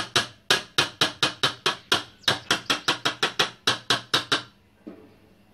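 Metal beaters of an electric hand mixer being tapped quickly against the rim of a mixing bowl, some two dozen sharp knocks at about five or six a second, to shake off the thick whipped chocolate cream mixture. The tapping stops about four and a half seconds in.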